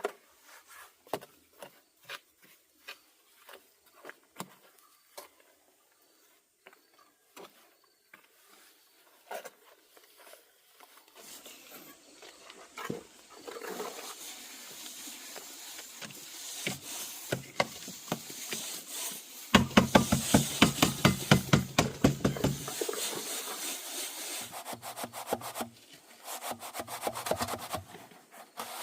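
Scattered light knocks and taps at first. Then a hand tool works wood in quick, rhythmic rasping strokes, which are loudest for about three seconds some two-thirds of the way through and then go on more lightly.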